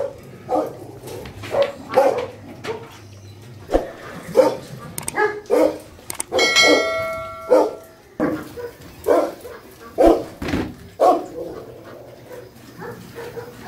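A pack of dogs barking in short, repeated bursts, several dogs at once. About halfway through, a short bell-like chime rings over the barking.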